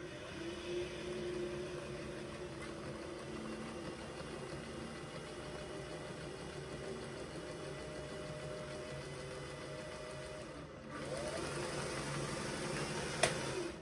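1961 Singer 503A Rocketeer sewing machine running steadily on its foot pedal during its first test run: motor hum and needle-bar mechanism. It runs louder for the last few seconds, gives a sharp click, then stops abruptly.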